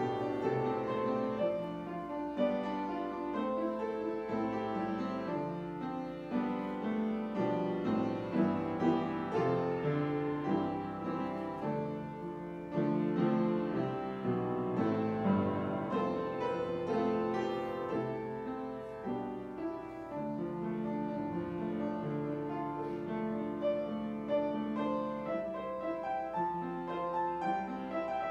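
Solo upright piano playing a melody over sustained chords, the notes changing steadily with no pause.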